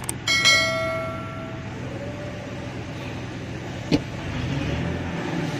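A click and a bell-like ding, the added subscribe-button sound effect, ringing out and fading over about a second and a half near the start, over the steady low hum of the Ford F-150's engine idling. A sharp knock about four seconds in.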